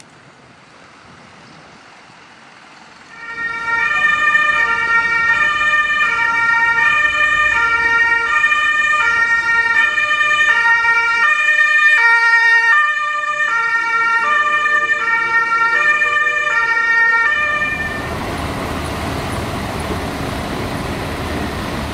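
German police vehicle's two-tone siren (Martinshorn), switching back and forth between two pitches about every two-thirds of a second. It starts about three seconds in and stops a few seconds before the end, where steady traffic and engine noise takes over.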